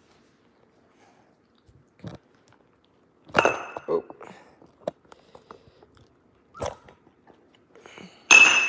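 Month-old Labrador puppies chewing and scuffling at play, with scattered short knocks and clatters. There are louder sharp noises about three and a half seconds in and the loudest near the end.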